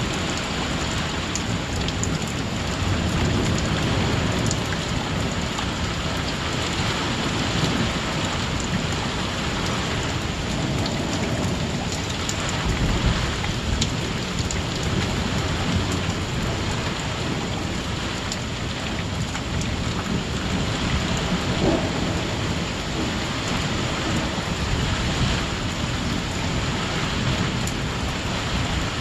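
Thunderstorm: a steady heavy downpour of rain with nonstop rolling thunder underneath.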